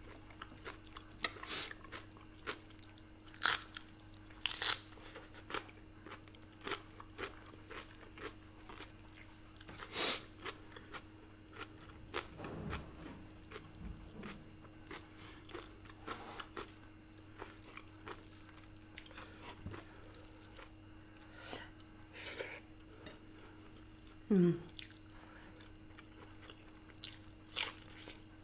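Close-up chewing and lip-smacking as a person eats rice, pork and potato by hand, with wet clicks and small crunches at irregular intervals. A short, falling voice-like sound comes near the end.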